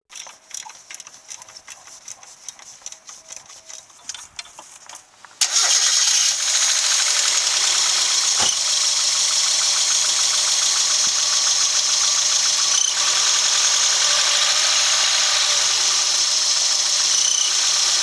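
Mazda Eunos Roadster (NA6CE) 1.6-litre four-cylinder engine starting about five seconds in and then idling steadily, with a steady high-pitched noise from around the alternator that sounds like crickets chirping. Neither the drive belt nor the alternator bearing turned out to be the cause.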